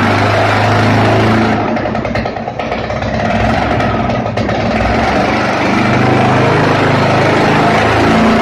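Homemade two-stroke boxer paramotor engine running steadily. About two seconds in it drops back for a couple of seconds, then picks up again to a steady speed.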